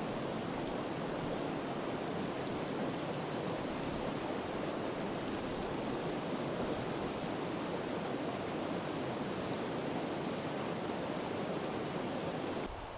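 Steady rushing of a small mountain stream, which drops away suddenly near the end.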